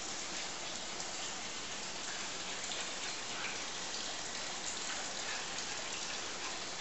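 A steady, even hiss with faint, scattered clicks of small dogs' claws on a tile floor.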